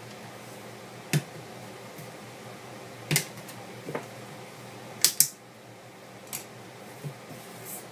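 Sharp plastic clicks and snaps as a pry tool works the small plastic pieces off the back of a Casio Commando phone. There are about seven separate clicks, the loudest a quick pair about five seconds in.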